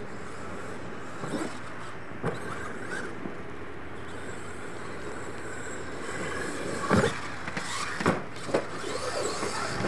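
Radio-controlled monster truck running and sliding on a dirt track, with a steady drive and tyre noise. A few sharp knocks come about seven and eight seconds in.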